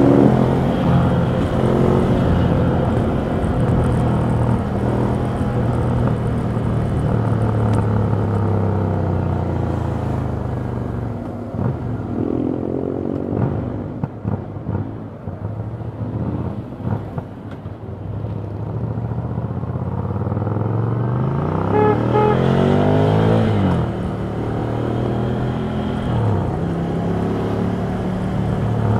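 Exhaust of a Ducati Scrambler Full Throttle's air-cooled L-twin while riding. It runs steadily at first, eases off to a lower, uneven run in the middle, then revs up with a rising pitch a little after twenty seconds in before settling back to a steady cruise.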